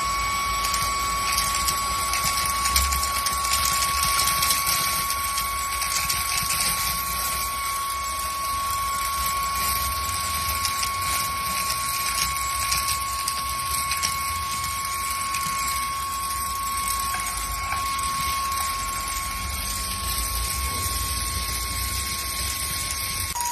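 Handheld cordless vacuum cleaner with a 10.8 V brushless motor running, a steady high-pitched whine, with a fast crackle of debris being sucked up, densest in the first half.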